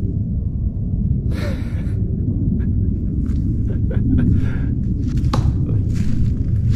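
Footsteps rustling through dry leaf litter and brushing past stiff saw palmetto fronds, over a steady low rumble on the microphone. A longer swish of fronds comes about a second and a half in, then scattered crunches and snaps.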